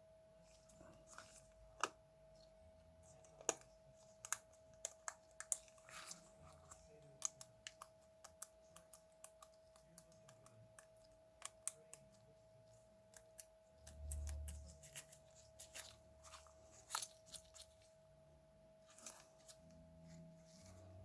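Irregular light clicks and taps of small tools and parts being handled while working on a cassette Walkman, with a soft low bump about two-thirds of the way through, over a faint steady tone.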